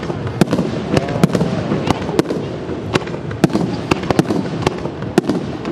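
Fireworks display: aerial shells bursting in the sky with sharp bangs, about two a second at uneven intervals, over a continuous low rumble of further explosions.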